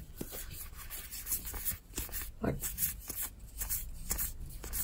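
Cardfight!! Vanguard trading cards being flipped through by hand, card surfaces sliding and rubbing over one another in a string of short, uneven scrapes.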